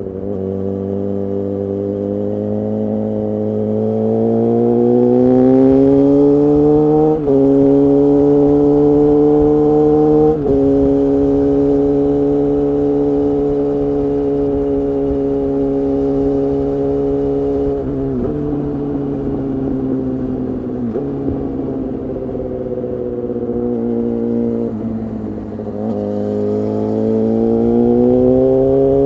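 Suzuki GSX-R750's inline-four engine heard through an aftermarket Akrapovic exhaust pipe and Spark silencer while riding. It revs up and shifts up twice, each shift marked by a brief dip and step in pitch. It then holds a steady note, drops off with a couple of downshifts, and revs up again near the end.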